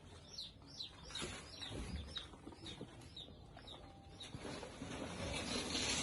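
Faint chirping of small birds: a scattered run of short, high, falling chirps.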